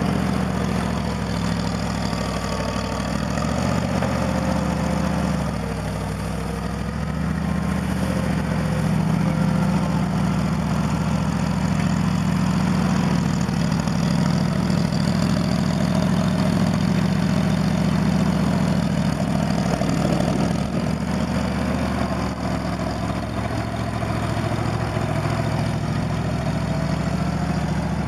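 New Holland L425 skid steer's engine idling steadily, warming up after a cold start with the choke set, having sat unstarted for three months.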